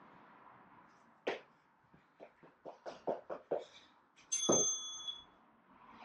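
Quick, light thuds of feet landing on the floor during fast-feet and burpees. About four seconds in comes a single bright bell-like ding that rings for under a second, a workout interval timer signalling the end of the exercise.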